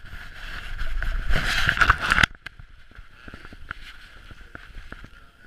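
Rubbing and rustling of a basset hound's ears and fur against a GoPro worn by the dog, loud for about two seconds and then cutting off suddenly. After that, quieter handling noise with scattered light ticks.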